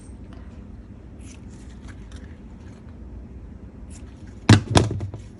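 Faint rustling and light ticks of craft materials being handled on a tabletop, then two sharp knocks in quick succession near the end.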